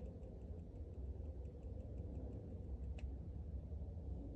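Battery-powered ultrasonic rodent repeller clicking: a run of faint rapid ticks with a couple of sharper clicks, over a low steady rumble.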